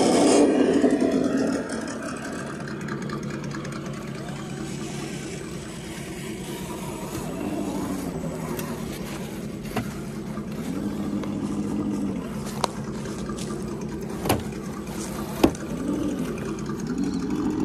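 Radio-controlled crawler trucks' electric motors and gearboxes whining, the pitch rising and falling in several swells as the throttle is worked over logs. A few sharp knocks sound in the second half.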